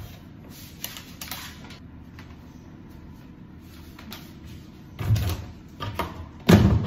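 Handling noises from doing laundry: a plastic bag of washing powder rustling and crinkling, with several clicks and knocks. Deeper thumps come about five seconds in, and the loudest about six and a half seconds in.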